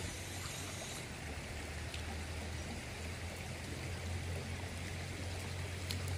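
Steady rush of shallow water flowing in a canal stream, with a steady low hum underneath.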